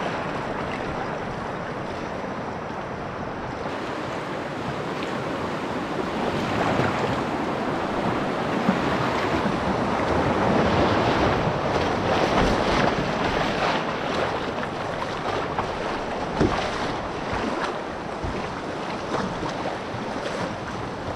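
Rushing whitewater of a river rapid, heard from a canoe running through it, with a few short sharp hits scattered through the rush.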